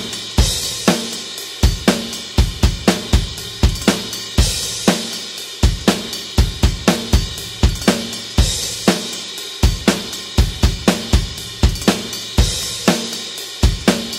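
Rock drum kit playing a steady beat at 120 beats per minute: bass drum, snare and hi-hat, with a crash cymbal about every four seconds.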